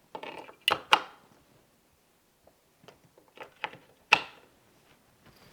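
AA batteries being pressed one by one into the plastic battery holder of a keyless deadbolt's interior assembly: a series of sharp clicks and knocks, with a cluster in the first second and the loudest about four seconds in.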